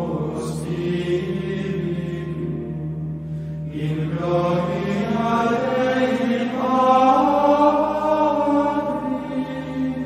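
Voices chanting slowly in the style of Gregorian chant, holding long notes over a steady low drone. They break off briefly about three and a half seconds in, then come back and step up in pitch and loudness a little past the middle.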